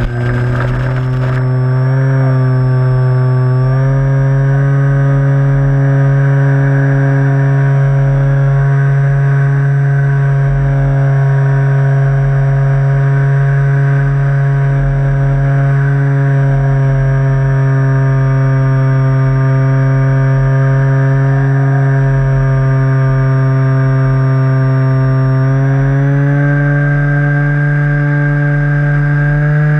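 Onboard sound of a radio-controlled model plane's motor and propeller running at steady high throttle: a continuous buzzing drone with a thin high whine above it. The pitch steps up slightly a few seconds in and again near the end.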